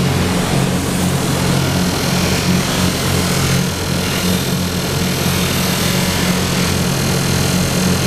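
Workshop machinery for finishing zinc alloy parts running steadily: a constant low motor hum with an even hiss over it.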